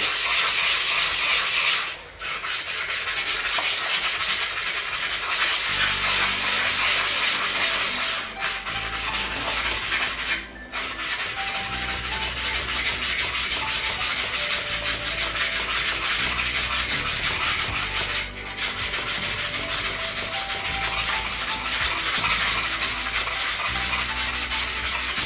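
Naniwa Chosera 1000 waterstone being flattened, a steady gritty scraping as it is rubbed back and forth on a lapping surface, with short breaks about 2, 8, 10 and 18 seconds in. The stone has been dished by sharpening and is being ground back to a flat face.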